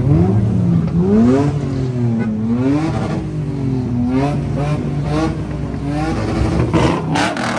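Car engine revving up and down repeatedly at a 2-step launch-limiter meet, with a few sharp pops near the end.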